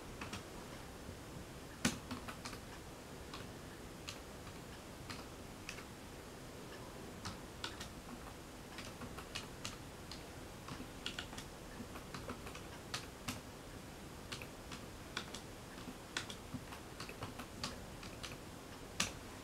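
Typing on a computer keyboard: faint, irregular key clicks as a short message is typed, with one sharper click about two seconds in.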